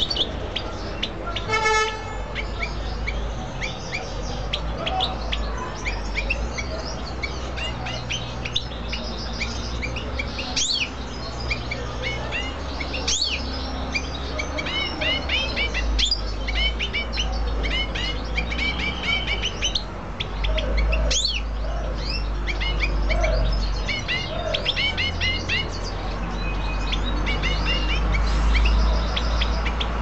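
Caged canary and European goldfinch chirping and twittering: many quick, short calls and sliding notes, over a steady low rumble.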